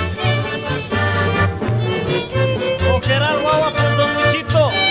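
Background music: a fiddle melody with sliding notes over a steady, bouncing bass beat.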